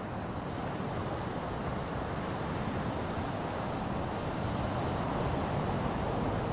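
Ocean surf: a steady rushing wash of waves, slowly growing a little louder.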